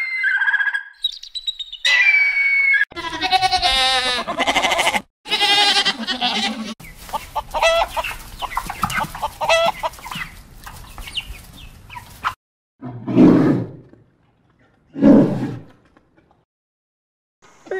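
A hawk's high, clear scream, twice in the first three seconds. Then a flock of hens clucks and squawks for several seconds. Near the end a polar bear gives two short, loud, low growls about two seconds apart.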